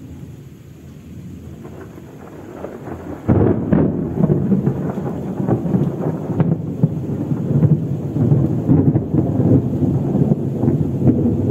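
Thunder: a low rumble builds, then breaks sharply and loudly about three seconds in and goes on as heavy, crackling rolling rumble.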